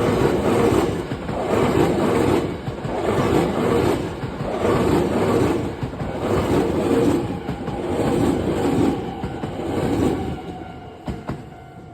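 Hankyu Kyoto Line electric train passing over a level crossing, its wheels drumming on the rails in a regular beat roughly once a second as the cars go by. The sound fades away near the end as the last car passes.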